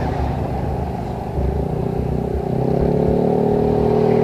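Yamaha NMAX 155 scooter's single-cylinder four-stroke engine running through an Akrapovič full exhaust system while riding. About a second and a half in it gets louder and fuller as the throttle opens, then holds a steady drone.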